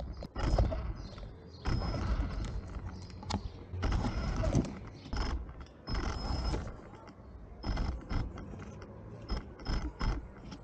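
Radio-controlled car's motor and gears whirring and rattling in short stop-start bursts, each with a thin high whine, as the car creeps forward under small throttle blips.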